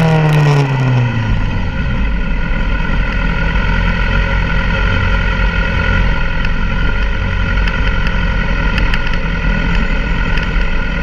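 Sport motorcycle engine under way: its revs fall in the first second or so, then hold steady at a constant pitch.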